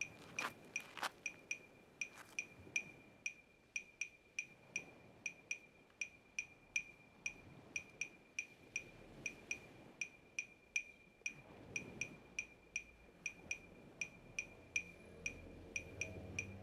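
Steady mechanical ticking, about two sharp ticks a second, like a clock. Near the end, low sustained music tones come in under the ticking.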